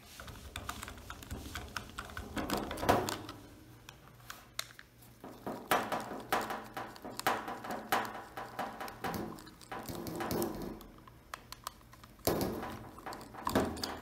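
Screwdriver backing out the small screws of an Oster 76 clipper's plastic switch cap: irregular small clicks and scrapes of the tip in the screw heads, with light handling of the clipper.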